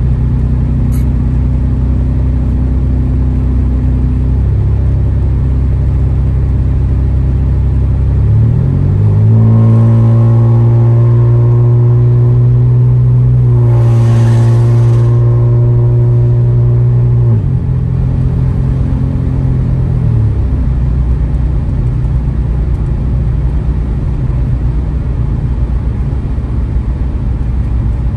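Catless, straight-piped 2015 Ford Taurus Limited's exhaust droning at a steady cruise. About eight seconds in it rises in pitch as the car accelerates and holds the higher engine speed for about eight seconds. It then drops back in two steps to a steady cruise.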